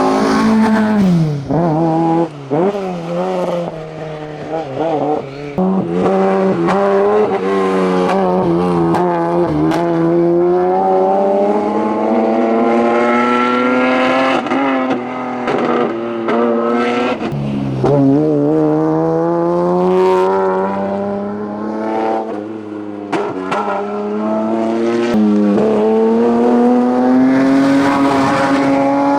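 Hillclimb race car engines at full throttle. First the tail of a Seat 124's run, its engine note falling away. Then a BMW 320i accelerating uphill, its note climbing slowly and steadily, dropping sharply a little past the middle at a lift or gear change, then climbing again.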